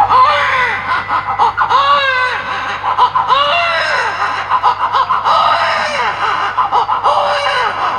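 A man imitating a hungry baby crying: a string of wavering wails, each rising and then falling in pitch, about one a second. Audience clapping and laughing runs underneath.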